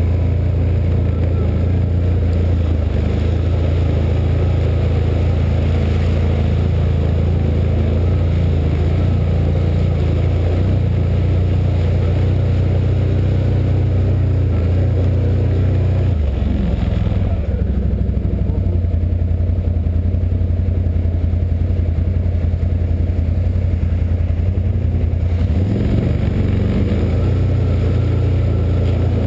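Can-Am Outlander 1000 ATV's V-twin engine running steadily as the quad is ridden along a rough trail. The engine note dips briefly about sixteen seconds in and again about twenty-six seconds in.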